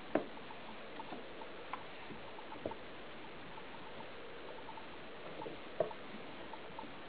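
A cat rolling and rubbing on the carpeted base of a wooden cat tree scattered with catnip: faint scratchy rustling over a steady hiss, with a few soft knocks, one just after the start, one near the middle and one about six seconds in.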